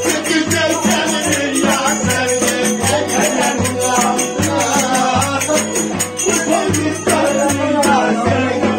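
Turkish folk music with a violin (keman) playing a sliding melody over a steady low pulsing beat and quick rattling percussion.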